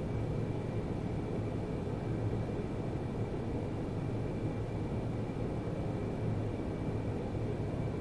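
Steady background room tone: a low hum with faint hiss, unchanging throughout.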